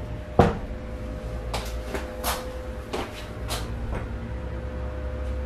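A sharp knock about half a second in, then several lighter clicks and taps, over a steady hum.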